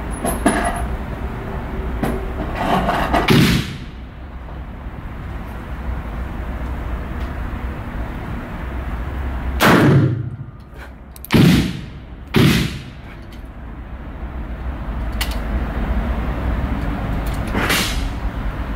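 Spanish 1892 regulation revolver firing .32-20 Winchester cartridges: about five sharp single shots, each with a short echo. Three of them come in the middle about a second apart, and single shots come early and near the end.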